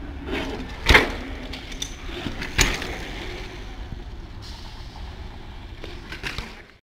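Bicycles riding over a paving-stone curb step, with two sharp knocks about a second in and again a second and a half later, and a few lighter clicks near the end. Wind rumbles on the microphone throughout.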